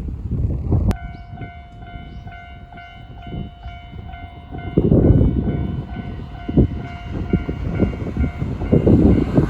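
Japanese railway level crossing's electronic warning bell switching on about a second in and ringing in a rapid, even ding-ding rhythm, signalling that a train is approaching. Under it is a low rumbling noise that grows much louder about halfway through.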